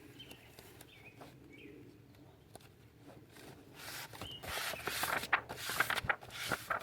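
A few faint, short bird chirps, then from about halfway through, irregular rustling and light handling knocks.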